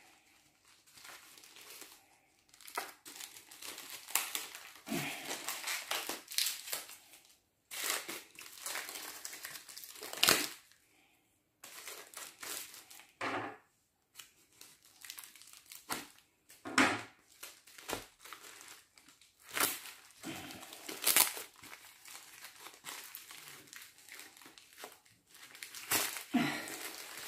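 Plastic mailer bag and packing tape crinkling and tearing in irregular bursts as a tube-shaped parcel is sliced with a knife and the wrapping pulled off, with a few short sharp rips.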